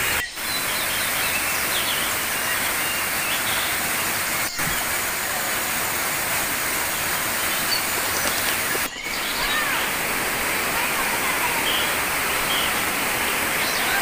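Waterfall rushing over a rock cascade: a loud, steady wash of water noise, broken by three very short dropouts, near the start, about four and a half seconds in, and about nine seconds in.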